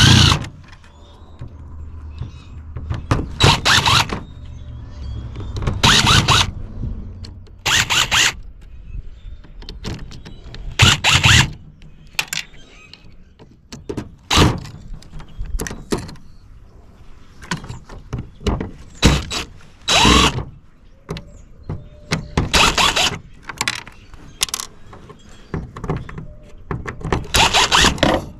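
Screws being taken out of a metal gauge housing by hand with tools: short, loud bursts of tool-on-metal noise every two to three seconds, with clunks of parts in between.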